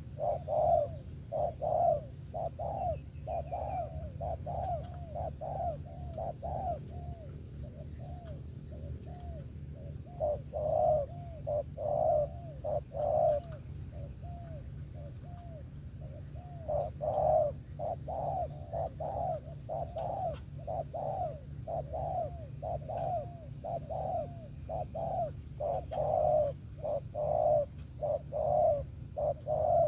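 Spotted dove cooing: runs of low, rounded coo notes about two a second, easing off briefly a couple of times, over a steady low hum.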